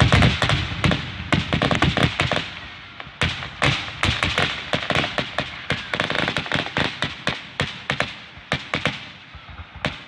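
Fireworks finale: a rapid barrage of shell bursts and crackling pops, many a second, heaviest in the first second and thinning a little towards the end.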